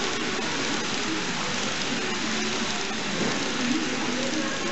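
N gauge model passenger coaches rolling past on the track: a steady, even rush of small metal wheels running on rail.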